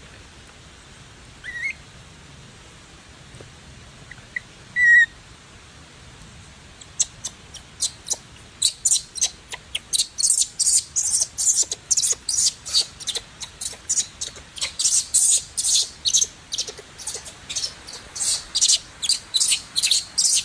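Newborn macaque infant squeaking: two short squeaks early on, then from about seven seconds in a rapid, shrill string of squeals, about three a second, as it is handled by its mother.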